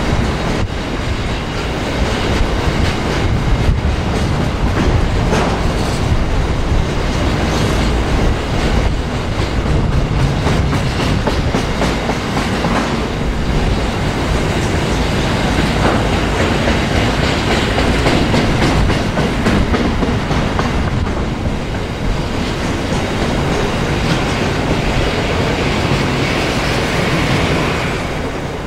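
A train rolling past with steady, loud wheel-on-rail noise, easing off slightly near the end.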